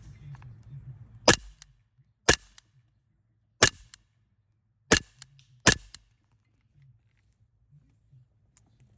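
Sig Sauer 1911 Spartan CO2 BB pistol firing five shots at uneven spacing over about four and a half seconds, each a sudden sharp pop.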